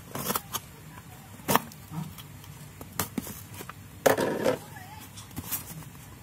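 A cardboard parcel being handled and cut open with a small blade: a few sharp taps and knocks against the box, then a louder rustling scrape of cardboard and tape about four seconds in.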